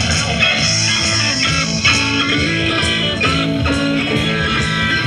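Guitar-led music with a bass line, at a steady level.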